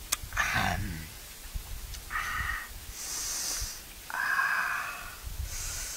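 A person breathing heavily in and out through the mouth and nose, in a slow rhythm of about one breath every two seconds. There is a sharp click right at the start.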